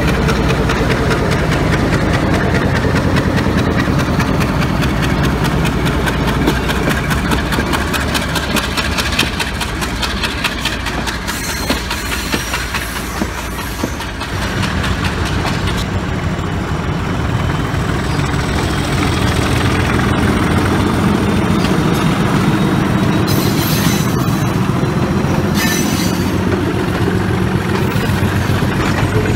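Diesel-electric locomotives running as trains move through a station: first a Class M10A locomotive's engine running at close range, then trains of carriages rolling over the tracks behind their diesel locomotives, with the sound changing about halfway through.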